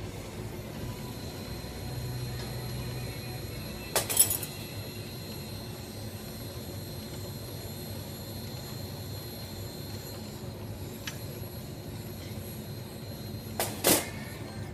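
Bethlehem GL-50 glass lathe turning glass tubing under a torch flame: a steady running hum and hiss with a thin high whine. Two short bursts of sharp clicks stand out, about four seconds in and again near the end.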